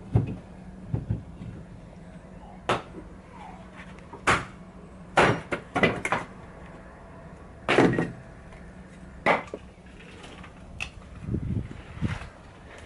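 Split firewood blocks knocking and clunking together as they are lifted off a stacked woodpile: about ten sharp wooden knocks at irregular intervals.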